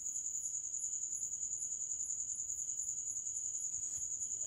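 A steady high-pitched trill with a fast, even pulse, insect-like, over quiet room tone.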